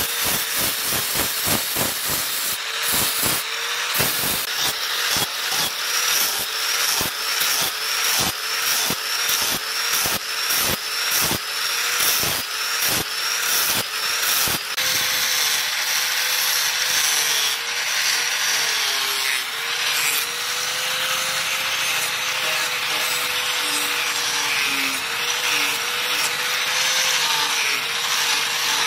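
Handheld angle grinder with a sanding disc worked against a knife's handle and metal bolster in short repeated passes, about two a second. Its whine dips under load with each pass. From about halfway it runs in longer, steadier passes, now along the steel blade, with an even rasping and a slightly wavering whine.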